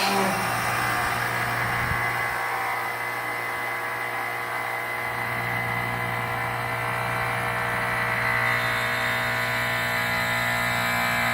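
Outdoor compressor unit running with a steady low hum and a whining, grinding mechanical drone; this is the grinding noise the owner is recording as a fault.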